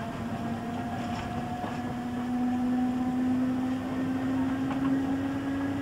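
Slam-door electric multiple unit heard from inside the carriage, its traction motors whining with a pitch that rises slowly as the train gathers speed, over running rumble and a few faint clicks.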